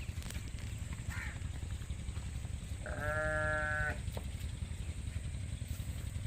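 A single bleat, about a second long, roughly midway through, over a steady low rumble.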